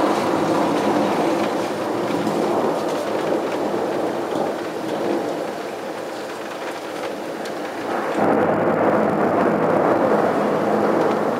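Thunder rumbling on and on with rain falling. The rumble eases off in the middle and swells again about eight seconds in.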